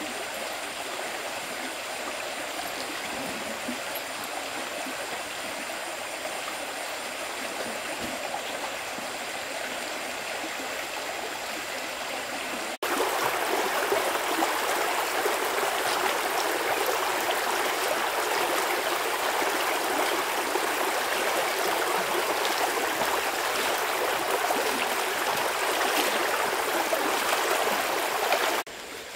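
Water of a stream flowing steadily. About thirteen seconds in, it cuts abruptly to a louder stretch of rushing water, which stops suddenly near the end.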